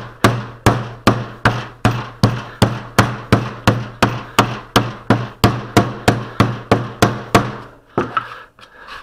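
Wooden putty mallet beating a lump of old glazing putty on a board, a steady run of dull knocks about two and a half a second. It is kneading in a little boiled linseed oil to loosen putty that has gone short. The beating stops near the end, with a few lighter knocks after.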